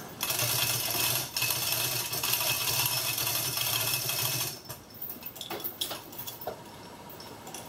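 Electric chain hoist motor running steadily for about four and a half seconds, with a brief break just over a second in, as it lifts the engine out of the engine bay. A few light metallic clinks and knocks follow.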